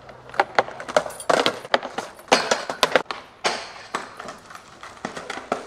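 Skateboard in use: a rapid, irregular string of sharp clacks and knocks as the deck, wheels and trucks hit the pavement and a metal stair handrail, with rolling noise between the hits.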